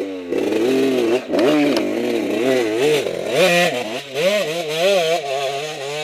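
Off-road motorcycle engine revved hard and repeatedly, its pitch rising and falling one to two times a second as the throttle is worked.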